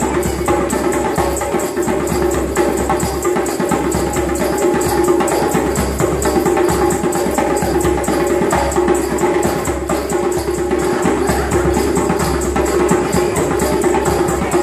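Live busker percussion music, with hand drums such as a djembe playing a quick, steady beat.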